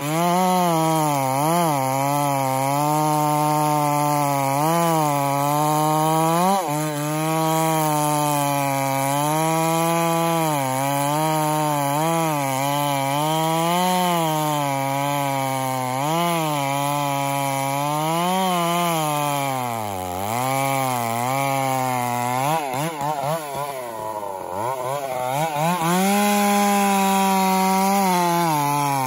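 Gas chainsaw cutting through a large pine log, its engine held under load with the pitch wavering as the chain bites. The engine bogs lower about twenty seconds in, then revs higher near the end.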